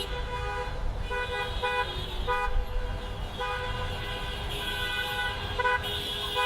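Car horns honking in a traffic jam: a string of short toots and a few longer blasts, over a steady low rumble of traffic.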